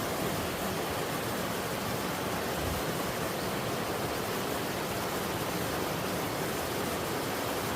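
Two-tiered slide waterfall on a mountain stream: water rushing steadily down over sloping rock.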